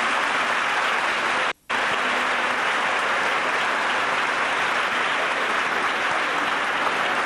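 An audience applauding steadily. The sound cuts out for an instant about a second and a half in.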